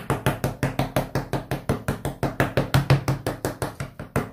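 A fork pricking sablé tart dough in a metal tart pan, its tines going through the dough and striking the pan's base in a fast, even run of knocks, about six a second.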